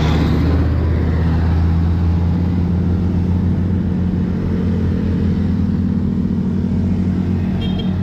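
Heavy truck's diesel engine running past at close range, a steady low drone that eases off slightly as it moves away, with small motorcycles going by behind it.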